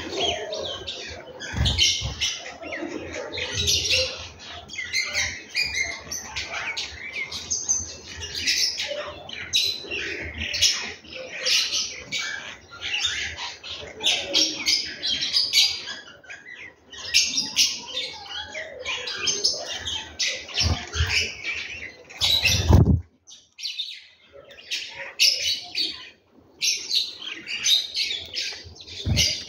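Many house sparrows chirping in a dense, continuous chatter. A low thump comes near the end, followed by a short lull in the chirping.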